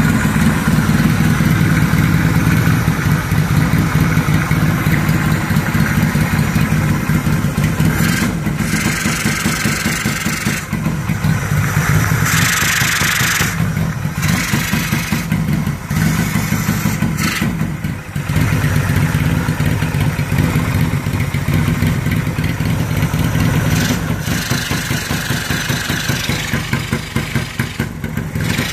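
Yamaha XS650 air-cooled parallel-twin engine running steadily, mostly at idle, on its aftermarket carburettors, with a few brief changes in its note around the middle.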